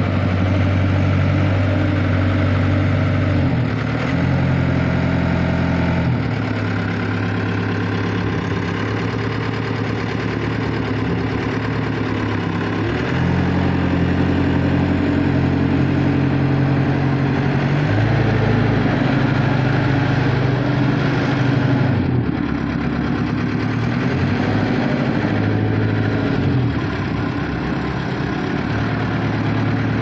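Zetcat LL60 skid steer loader's engine running as the machine drives and turns. Its engine note shifts up and down in steps several times.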